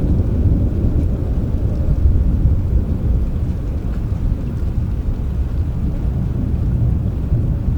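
Steady rain with a low, continuous rumble of thunder underneath it.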